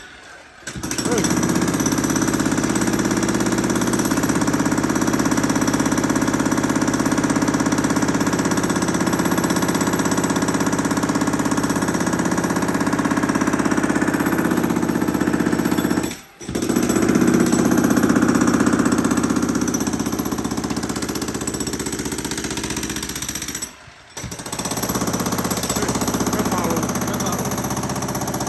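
Jackhammer breaking up a concrete slab, hammering steadily and loudly. It stops for a moment three times: right at the start, about 16 seconds in, and about 24 seconds in.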